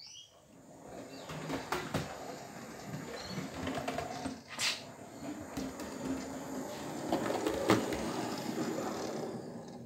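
O gauge model pannier tank locomotive (London Transport L94) running along the track and through the points, its motor and wheels making a steady rolling rumble with a faint hum. A few sharp clicks sound as the wheels cross the points. It grows louder as the engine approaches and eases off near the end.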